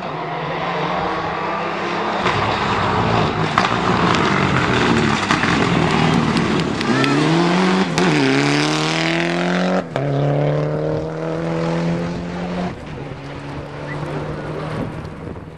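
Mitsubishi Lancer Evolution rally car's turbocharged four-cylinder engine revving hard as it approaches and passes close on a gravel stage, its pitch climbing through the gears with a shift about ten seconds in, over gravel and tyre noise. The engine note fades near the end as the car drives away.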